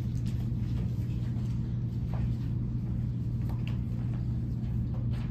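Steady low room hum with a few faint, scattered clicks over it.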